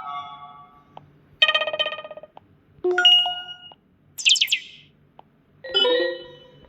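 Kyocera DuraForce Pro phone speaker playing its preloaded notification tones one after another: a pulsing chord, a rising two-note chime, a quick high falling sweep, and a final chord that rings and fades.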